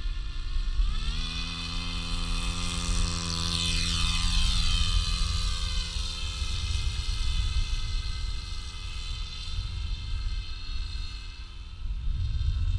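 RC autogyro's motor and propeller running in flight, rising in pitch as the throttle comes up about a second in, then holding a steady drone. Its pitch drops around four seconds in as it passes close overhead.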